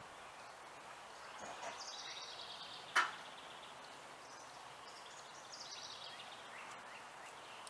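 Faint outdoor background with a bird singing two trilled phrases that fall in pitch, a few seconds apart. A single sharp click about three seconds in is the loudest sound.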